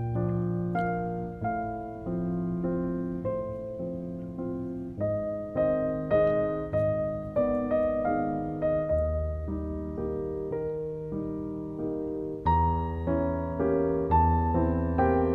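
Background piano music: a slow, gentle tune of single notes struck about twice a second over held low notes.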